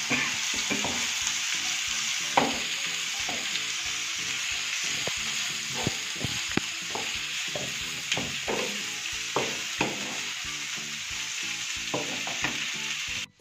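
Sliced bell peppers, carrots and onions sizzling steadily in a frying pan as they are lightly sautéed, with frequent knocks and scrapes of a wooden spatula stirring against the pan. The sizzle stops abruptly just before the end.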